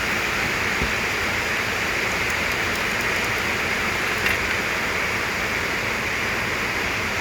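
A steady, even hiss that does not change, with a faint click about four seconds in.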